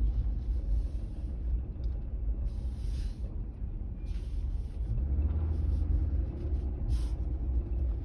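Low rumble of engine and road noise inside the cab of a moving pickup truck, growing louder about five seconds in.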